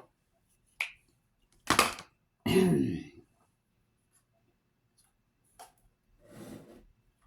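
A woman coughs once and then clears her throat with a short voiced rasp, with a couple of small clicks and a soft rustle of things being handled later on.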